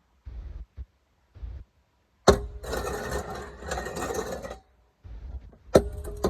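Metal gas cylinder handled for foley: a few soft thumps, a sharp metallic clang about two seconds in followed by about two seconds of rattling scrape, then a second clang near the end that rings on with a steady tone.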